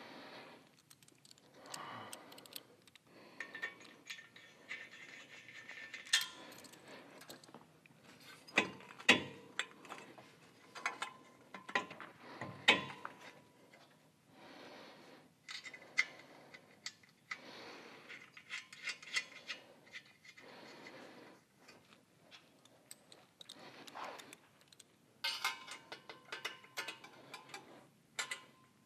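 Irregular metallic clinks, taps and rattles of a two-into-one exhaust head pipe and its flange hardware being worked into position on a Harley-Davidson Dyna's exhaust ports, with sharp clicks, a few louder knocks and brief ringing of metal.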